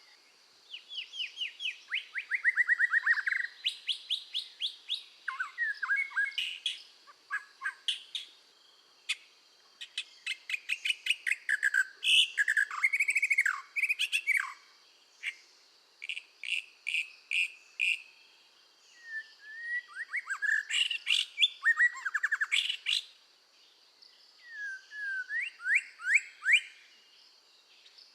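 Scarlet minivet singing in full voice: phrases of rapid, short whistled notes, many falling in pitch, repeated in bursts with brief pauses between them.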